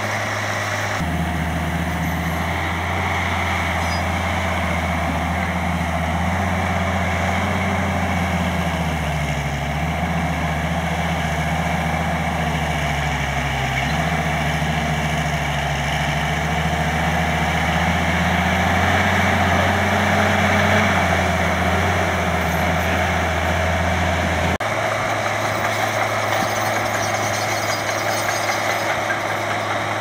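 Crawler bulldozer's diesel engine running steadily as it pushes dirt, its pitch wavering and dipping with the load. The sound changes abruptly about a second in and again near the end, where the shots change.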